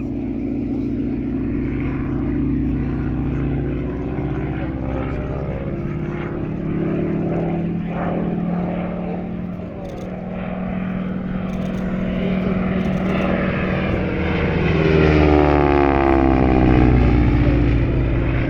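North American Harvard (T-6 Texan) with its Pratt & Whitney R-1340 Wasp nine-cylinder radial engine running through an aerobatic display, its pitch shifting as it manoeuvres. It grows loudest as it passes close, about fifteen seconds in.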